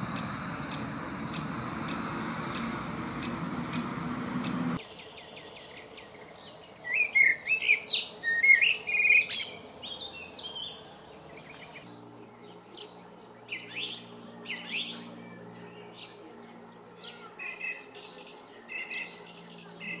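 A great spotted woodpecker's short sharp notes repeat evenly, about two or three a second. These are followed by a male common blackbird's loud song phrases, then a quieter song from another songbird over a faint low hum.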